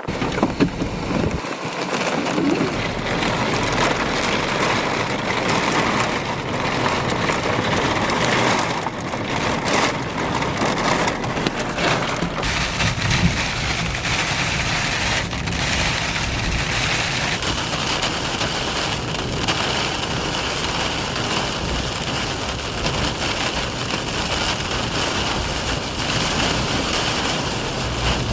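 Thunderstorm with heavy rain and strong wind: a steady, dense rush of noise with a few brief low rumbles.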